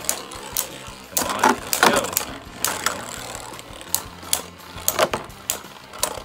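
Two Beyblade Burst spinning tops, one a left-spin Drain Fafnir, clashing in a plastic stadium: irregular sharp plastic clicks and knocks as they collide, several close together about a second and two seconds in and again around four and five seconds.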